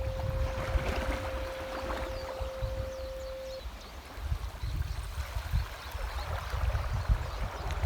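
A steady pure 528 Hz tone, mixed over the recording, cuts off about three and a half seconds in. Beneath it, sea water washes and sloshes continuously, with a low rumble.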